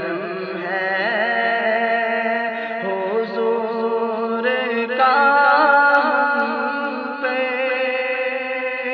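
A solo male voice reciting a naat without accompaniment, in long held notes with wavering, ornamented pitch. About five seconds in it rises into a louder, higher phrase.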